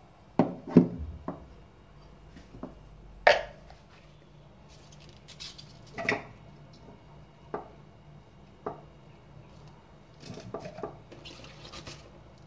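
Scattered knocks and clatter from handling a blender's chopper attachment: the blade lifted out of the bowl and chunks of food dropped into the bowl, no motor running. The loudest knocks come in the first second and about three seconds in, with a run of small clicks and rustling near the end.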